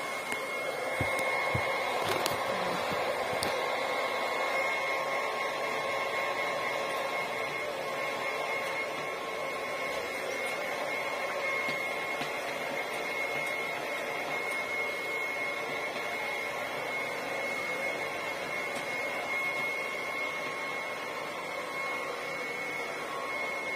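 Handheld hair dryer running steadily on long hair, a steady rush of air with a thin motor whine. It is a small personal-use dryer rather than a salon model, and the user finds it weak.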